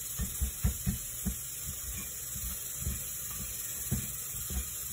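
Hands tossing and pressing peeled shrimp in seasoned flour on a plate, making irregular soft thuds and patting that are thickest in the first second and a half, over a steady hiss.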